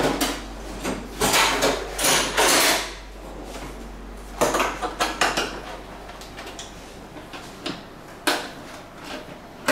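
Irregular clatter and knocks of hard plastic and metal parts as a scooter's rear grab rail and bodywork are handled and unbolted with a hand tool, in two busy spells followed by a couple of single knocks near the end.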